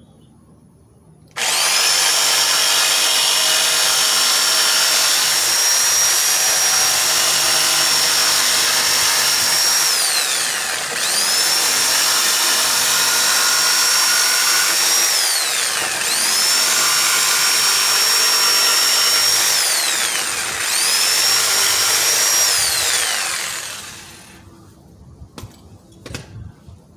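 Porter-Cable corded jigsaw trimming the edge of a wooden table top. It runs in four stretches, the longest about nine seconds and the rest shorter: each time the motor whines up, runs steady while the blade saws, then winds down. A few light knocks follow near the end.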